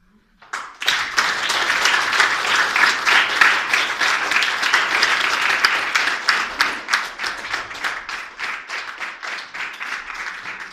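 Audience applauding at the end of a performance. The clapping starts suddenly about half a second in after a brief silence, then gradually thins out toward the end.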